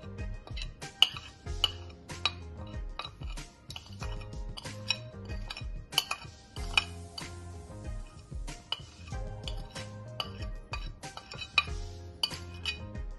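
Metal spoon clinking and scraping against a ceramic plate and a glass bowl as spices are spooned across, in irregular sharp taps. Background music plays underneath.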